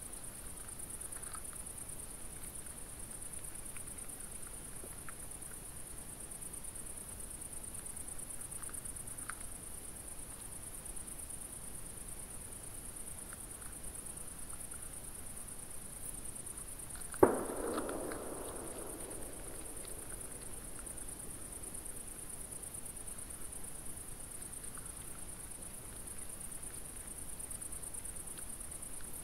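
Insects stridulating at night in a steady, high-pitched drone. About seventeen seconds in comes one sudden sharp knock, the loudest sound, followed by a couple of seconds of rough rustling.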